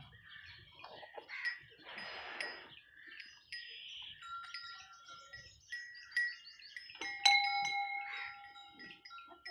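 Small metal cow bells ringing with clear, lingering tones at several pitches, loudest about seven seconds in. Near the start, milk squirts hiss into a steel pail.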